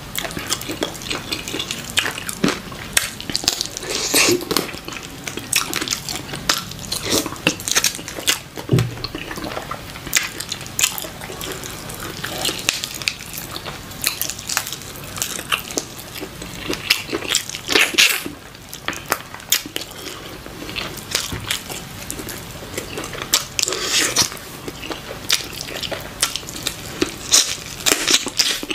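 Close-up wet eating sounds: soup-soaked chicken pulled apart by hand, with chewing and sucking, made of many short wet clicks, squelches and crunches in an uneven stream.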